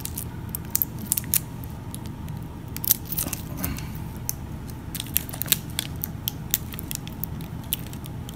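Hands handling a Casio G-Shock G-Steel watch: irregular small clicks and crinkles as pieces of clear plastic protection are taken off the watch.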